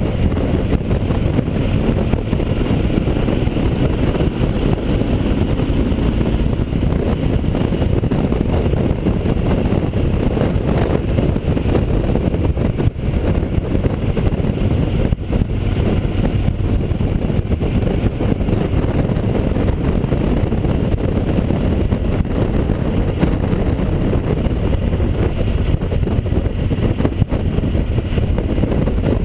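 Yamaha XT1200Z Super Ténéré's parallel-twin engine running at cruising speed, mixed with wind noise, as a steady low rumble. It is heard through a GoPro housing with an open back door, which lets the wind and engine in unmuffled.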